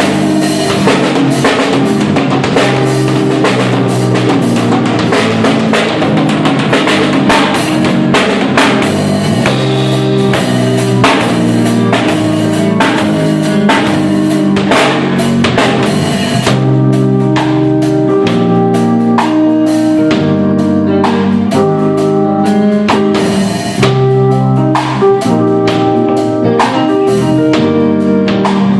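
Live instrumental trio of electric bass, keyboard and drum kit playing together: steady drum strokes over held keyboard chords and a bass line. About sixteen seconds in, the cymbals ease off.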